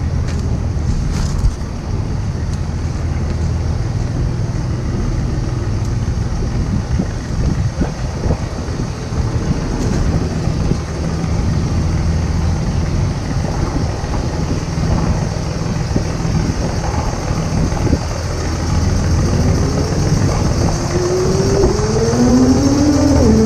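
Engine running with a steady low hum; in the last few seconds its note rises and falls.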